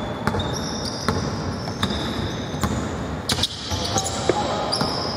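A basketball bouncing on an indoor court during play: irregular sharp ball bounces, with short high-pitched squeaks typical of sneakers on the court floor.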